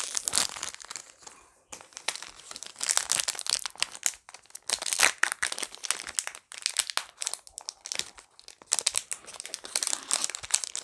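Foil wrapper of a Pokémon Celebrations booster pack crinkling and tearing as it is torn open and handled, in irregular crackly spurts with brief pauses.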